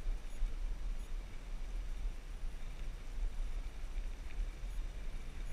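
Wind buffeting a bicycle-mounted action camera's microphone on a fast downhill ride: a steady low rumble with a rushing hiss above it.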